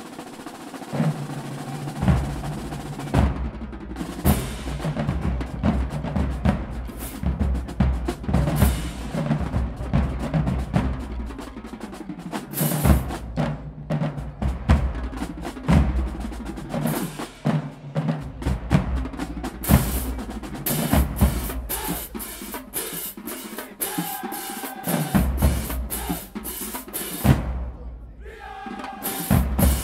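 Marching band drumline playing a cadence: fast snare drum patterns over heavy bass drum hits, with crash cymbals. The playing breaks off briefly near the end, then starts again.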